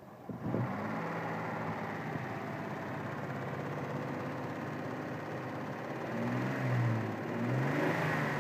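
Mitsubishi 6G72 3.0-litre V6 engine starting about half a second in and running steadily, then revved up and back down twice near the end. The engine has a knock.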